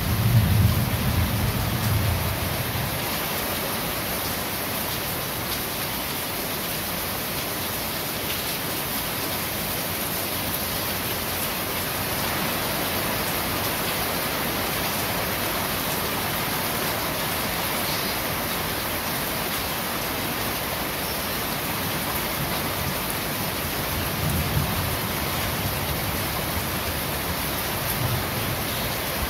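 Steady rain falling on corrugated roof sheets, an even hiss. A low rumble of thunder fades out over the first few seconds, and there are two brief low rumbles near the end.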